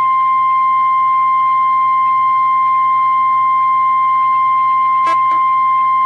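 NOAA Weather Radio's 1050 Hz warning alarm tone: one loud steady tone, heard off a radio receiver with a faint low hum beneath it and a brief click about five seconds in. The tone signals that a watch or warning announcement follows, here a severe thunderstorm watch.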